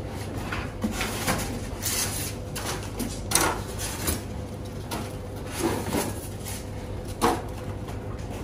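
Foam packing pieces and a cardboard box being handled while a device is unpacked: irregular scraping, rustling and light knocks, the sharpest knock about seven seconds in.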